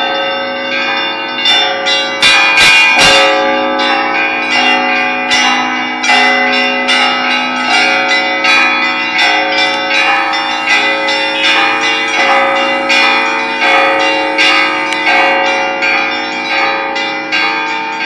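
Russian Orthodox church bells ringing: many bells struck in a rapid, dense rhythm over the sustained ring of the larger bells, with the loudest strikes about two to three seconds in.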